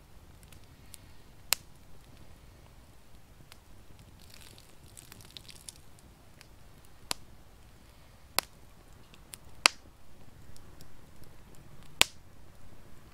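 Wood fire crackling: scattered sharp pops and snaps, about five loud ones among fainter ticks, with a brief hiss a little past four seconds in.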